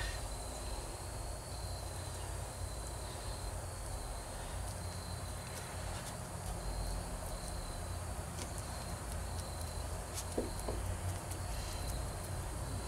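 Outdoor ambience: an insect chirping in a high, steadily repeating pulse, over a low rumble, with a few faint ticks.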